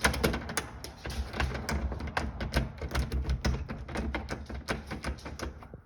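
Stuck screen door lock mechanism, freshly soaked in WD-40, being worked back and forth by hand: a rapid, irregular run of metallic clicks and rattles as the lubricant is worked in.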